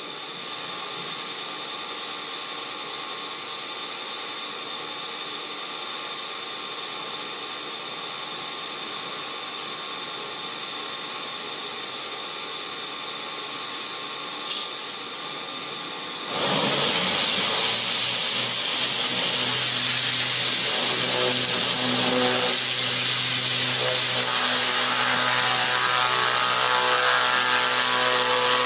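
Oertzen E1000 ultra-high-pressure cleaner running with a steady hum. A short burst of spray about halfway through, then from a little past halfway a loud, continuous hissing jet from the 1000-bar turbo nozzle hitting the part being cleaned, with the machine's steady tones under it.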